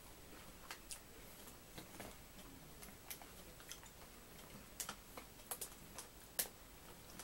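Faint, irregular crunching of potato crisps being chewed: scattered sharp clicks at uneven gaps, one louder click near the end.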